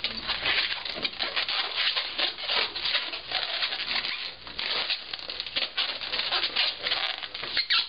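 Latex modelling balloons squeaking and rubbing against each other and the hands as they are twisted together, a dense run of short squeaks.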